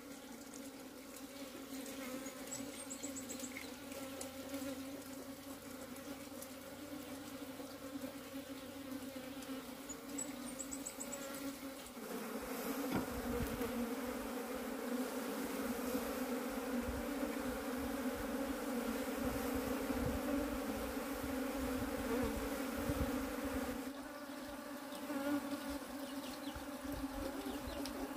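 Honey bees buzzing in a steady, many-voiced hum around an opened hive. The hum grows louder about halfway through for roughly twelve seconds, with some low rumble, then eases back.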